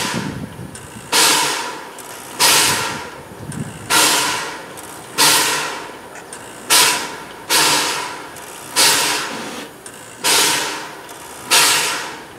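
Standing steam locomotive giving off repeated sharp hisses of steam, about one every second or so, each starting suddenly and fading away.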